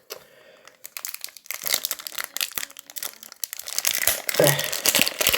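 Packaging crinkling and rustling as a Square-1 puzzle is unwrapped by hand, in a dense run of irregular crackles that starts about a second in and grows busier toward the end.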